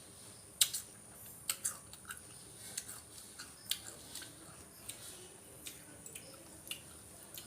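Close-miked chewing of a mouthful of rice meal, with irregular wet smacks and clicks of the mouth, the sharpest about half a second in.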